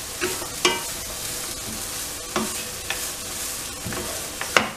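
Wooden spatula stirring and scraping grated coconut and jaggery in a hot non-stick pan, with a steady sizzle and several sharp knocks of the spatula against the pan, the loudest near the end. The jaggery is melting into the coconut as the modak filling cooks.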